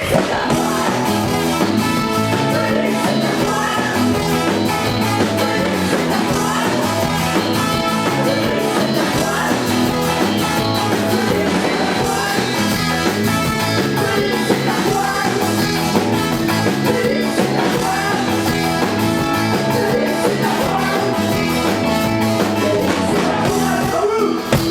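Ska-punk band playing live: electric guitar, bass and drums, with some singing.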